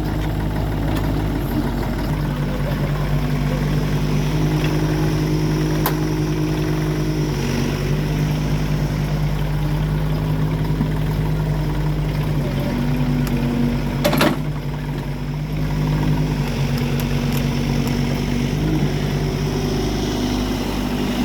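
Engine of heavy farm machinery running steadily, its pitch stepping up and down a few times as the revs change, with one sharp knock about fourteen seconds in.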